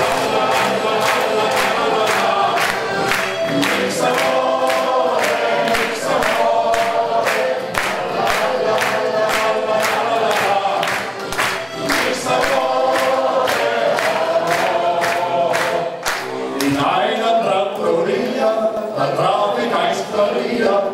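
A small men's choir singing a German schlager song to accordion and band accompaniment, with hand claps on a steady beat that stop about three-quarters of the way through.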